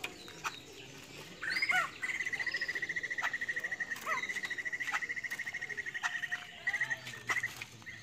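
Caged white-crested laughingthrush calling: a few short gliding notes, then a fast, even trill of rapidly repeated notes that runs for about five seconds before stopping.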